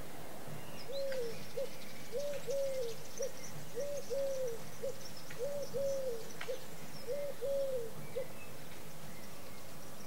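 A dove cooing in the background: a low three-note phrase, two drawn-out arched coos and a short clipped one, repeated about five times at an even pace and stopping about eight seconds in. Faint high chirps of small birds come and go.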